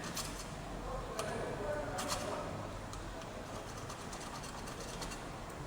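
Scattered light clicks and taps over a low, steady background noise, with a cluster of quicker clicks near the end.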